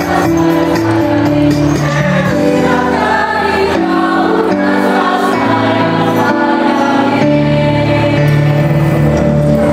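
A mixed choir of schoolboys and schoolgirls singing together in harmony, holding long notes.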